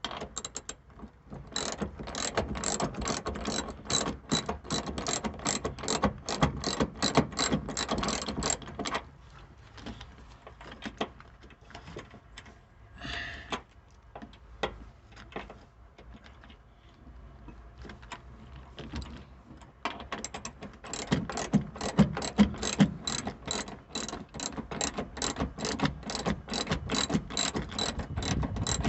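Hand ratchet wrench clicking rapidly, several clicks a second, as the seat belt mounting bolt is run in. There are two long runs of clicking with a roughly ten-second lull between them.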